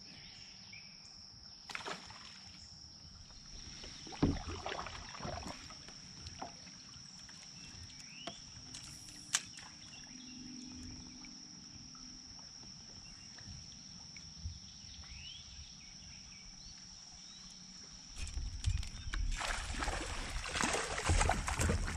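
Quiet sounds of a kayak on a river: a few scattered knocks against the hull and light water sounds, over a steady high insect drone. A louder rushing noise comes in near the end.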